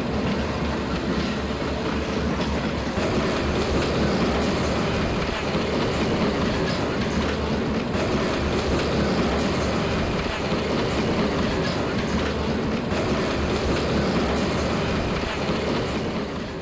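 HO-scale model freight cars rolling past on the track, a steady rolling noise of wheels on the rails with clicking, fading near the end as the last car, a caboose, goes by.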